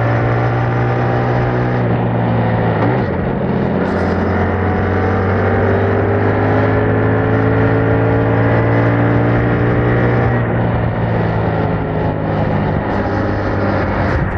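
Yamaha MT-07's 689 cc parallel-twin engine running on its stock exhaust while riding. About three seconds in the note breaks briefly, then climbs slowly in pitch as the bike accelerates, levelling off near the end.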